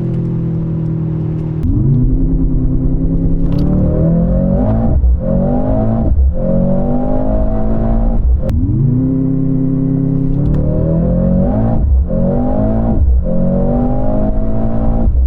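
Mercedes-AMG C63 engine pulling hard through the gears: the pitch climbs, drops at each upshift and climbs again, about six shifts in all.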